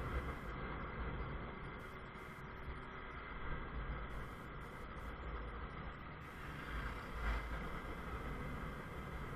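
Honda CBF 125's single-cylinder four-stroke engine running steadily under way, with wind and road noise. A brief thump about seven seconds in.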